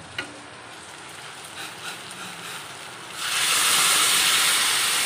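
A few light metal clinks, then about three seconds in a sudden loud hiss and sizzle as hot water goes into a kadai of potatoes frying in spiced masala.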